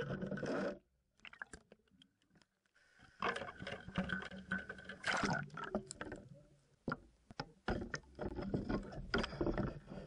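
Muffled water sloshing with scraping knocks and clicks, heard through the underwater camera, coming in uneven bursts that drop abruptly to near quiet a couple of times.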